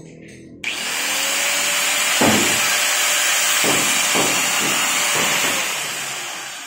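Handheld electric angle grinder switched on about half a second in, its motor winding up to a steady high whine with a loud hiss, with several brief louder noises in the middle; near the end it is switched off and spins down. It is being test-run with its disc freshly tightened.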